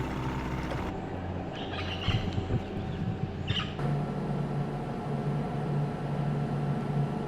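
A few short bird calls, the first about one and a half to two seconds in and another about three and a half seconds in, over a low steady drone.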